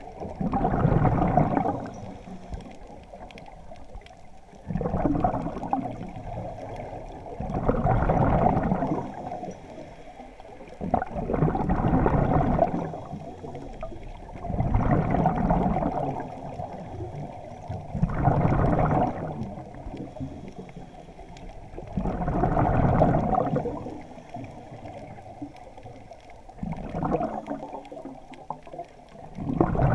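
Scuba diver breathing through a regulator underwater: a burst of exhaled bubbles gurgling out every three to four seconds, each lasting a second or two, with quieter stretches between breaths.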